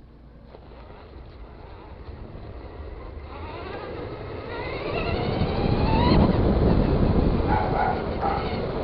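Traxxas Stampede 2WD electric RC car accelerating: its motor's whine rises in pitch for about three seconds and cuts off about six seconds in, over a rumble of tyre and wind noise.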